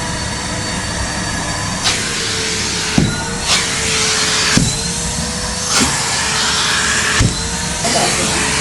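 A vacuum cleaner motor running steadily, with a slightly wavering hum and several sharp knocks spread through it.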